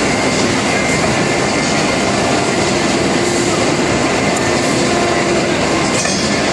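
CNC router running: steady, loud machine noise with faint steady tones through it.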